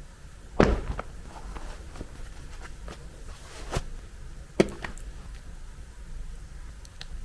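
A few scattered knocks and clacks over a low steady background noise, the loudest about half a second in and again about four and a half seconds in.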